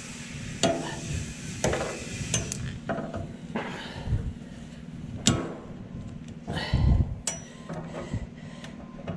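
Irregular knocks, clicks and rattles of handling as bungee cords are hooked and stretched to tie items down, over a steady low hum.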